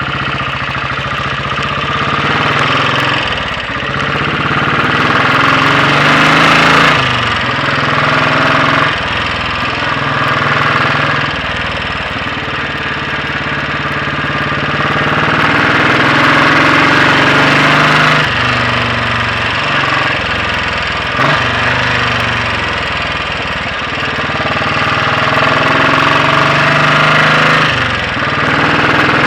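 Royal Enfield Bullet 500 single-cylinder four-stroke engine under way, its inlet cam retarded by one tooth. The engine note rises under acceleration and drops sharply several times as it changes gear, over a steady rush of noise.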